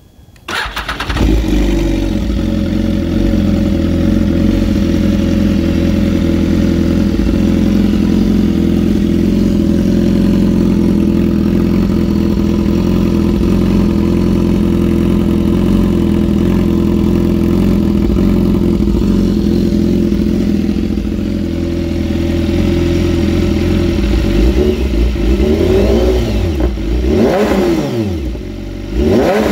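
BMW S1000RR inline-four with an SC Project full exhaust starting up about half a second in and settling into a steady idle. Near the end the throttle is blipped three times, the revs rising and falling sharply each time.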